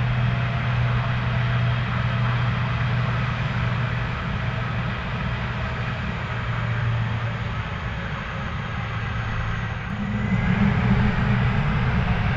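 Airbus A330 jet engines running with a steady rumble; about ten seconds in the rumble gets louder and a whine starts rising in pitch as the engines spool up.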